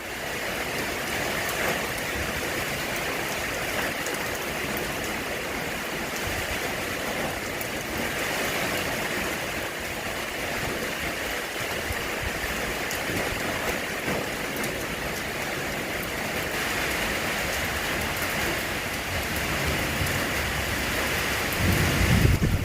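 Rain falling steadily, a dense even hiss of many drops. A brief louder low rumble comes near the end.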